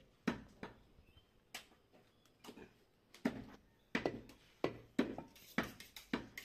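Heavy butcher's cleaver chopping goat meat on a wooden log chopping block: sharp single chops, a few spaced ones at first, then quickening to two or three a second in the second half.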